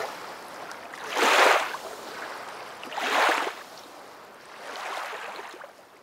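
Flowing water washing in gentle surges, swelling three times and growing fainter, fading out near the end.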